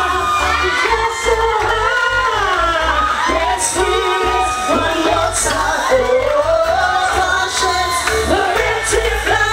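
A woman singing into a microphone over loud amplified backing music with a pulsing bass beat.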